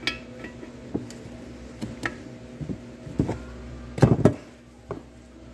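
Cast aluminium Tremec TR3550 transmission case being handled and shifted on a workbench: scattered light metal knocks, with two louder clunks about four seconds in, over a steady low hum.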